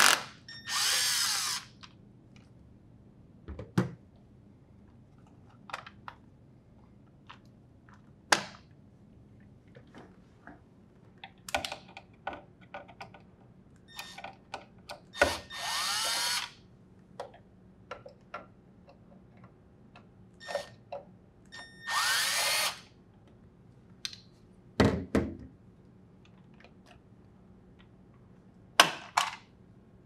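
Cordless drill driver spinning out Phillips screws from a refrigerator's plastic hinge covers, in three or four short runs of about a second each. Between the runs come scattered clicks and knocks of the plastic parts being handled.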